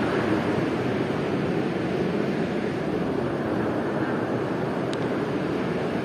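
Steady rushing noise of sea surf and wind, even throughout with no swells or breaks. A brief faint high tick sounds about five seconds in.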